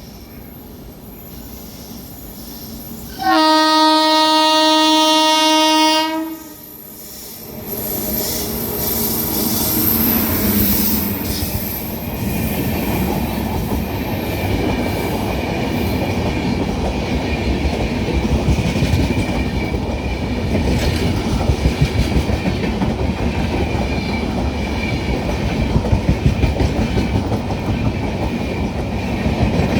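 WAG-7 electric locomotive sounding one long horn blast of about three seconds, then the locomotive and its coaches rolling past with a building rumble and a rhythmic clatter of wheels over rail joints.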